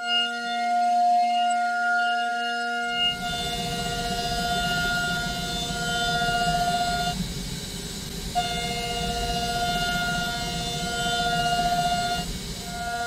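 CNC machining center's end mill high-speed roughing an aluminium workpiece: a steady high whine with even overtones. About three seconds in, a harsh rushing noise of cutting and flying chips joins it. The whine cuts out for about a second just after the middle and again briefly near the end.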